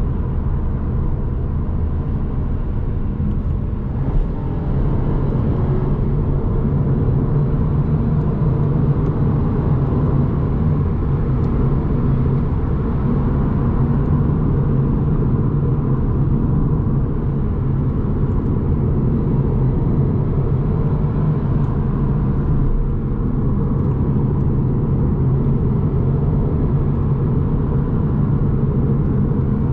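Interior sound of a Mercedes-Benz C200 Coupe on the move: its turbocharged four-cylinder petrol engine running with tyre and road noise, heard from inside the cabin. It holds steady at a cruise, a little louder after about four seconds.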